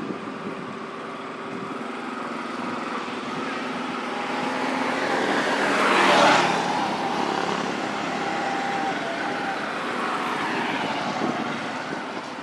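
A motor vehicle passing by: its engine and tyre noise grow louder over a few seconds, peak about six seconds in, and then fade as the pitch drops.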